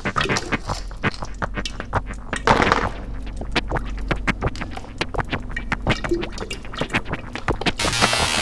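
Experimental ambient electronic music: a dense run of irregular crackling clicks over a steady low drone. A swell of hiss comes about two and a half seconds in, and a denser, buzzing texture takes over near the end.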